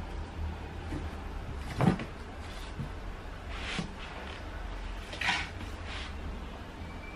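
A dull thump about two seconds in, then a few short scrapes of a handheld vegetable peeler taking the skin off an apple, over a low steady hum.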